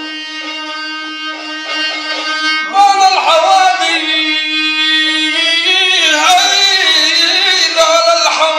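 Bedouin rababa, a one-string bowed fiddle, sounding a steady low note under short repeated bow strokes; about three seconds in a man's voice comes in singing loudly over it in a slow, wavering Bedouin melody.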